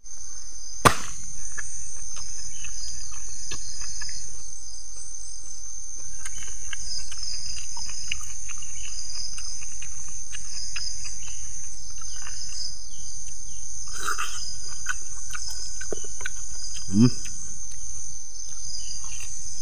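Steady, high-pitched chorus of insects, cricket-like, ringing without a break. A single sharp click comes about a second in.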